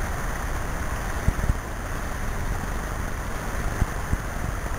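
Steady rush of flowing creek water mixed with low wind rumble on the microphone, with a few soft low bumps.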